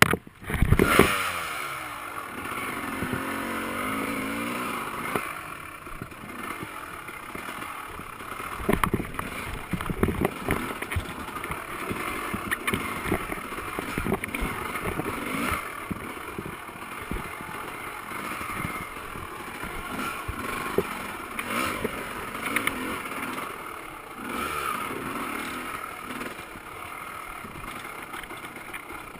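Off-road dirt bike engine running and revving up and down while riding a rough trail, with frequent knocks and rattles from the bike jolting over bumps.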